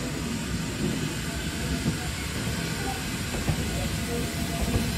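Vintage wooden-bodied passenger carriages rolling slowly past on jointed track: a steady low rumble of wheels on rail, with a few sharper knocks and clanks.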